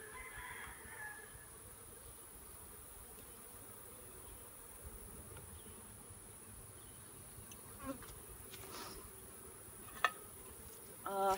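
Honey bees buzzing steadily around an opened hive. A single sharp knock comes about ten seconds in.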